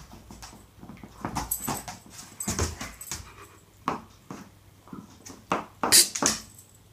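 Husky making a string of short sniffs, snorts and whimpers as it noses at something on the floor, the loudest about six seconds in.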